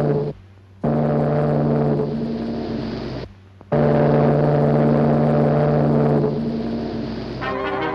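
Steamship whistle blowing long blasts on a low, steady note, each blast cut off abruptly. Orchestral music comes in near the end.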